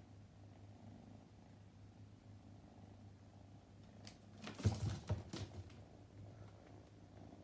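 Scottish Fold kitten purring faintly and steadily. About four and a half seconds in there is a short burst of loud knocks and rustles.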